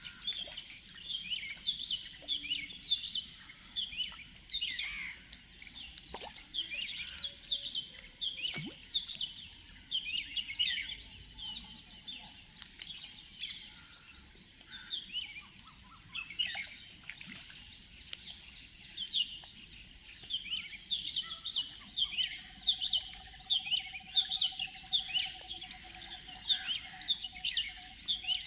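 Many small birds chirping at once, a dense chorus of short, rapid chirps that carries on throughout, over a faint steady high hiss. A single held lower tone sounds for about six seconds near the end.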